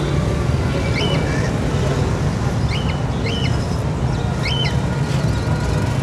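Caged cockatiels giving short whistled chirps, four in all, each a quick rise and fall in pitch, over a steady low rumble of traffic and market noise.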